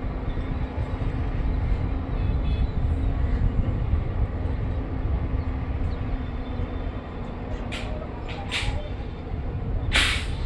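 Construction machine engine running steadily with a low rumble and a faint steady hum. Three short hisses come near the end, the last the loudest.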